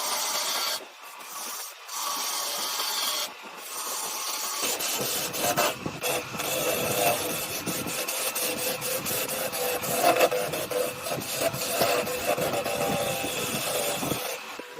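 A hand tool rasping and rubbing against wood, with brief pauses in the first few seconds, then continuous.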